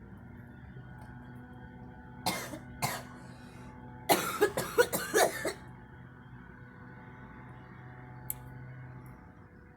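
A girl coughing: two single coughs, then a fit of five or six quick coughs about four seconds in.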